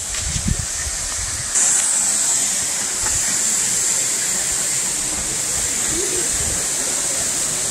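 Steady rushing hiss of a waterfall, stepping up in level about a second and a half in and then holding, with a few low thumps at the start.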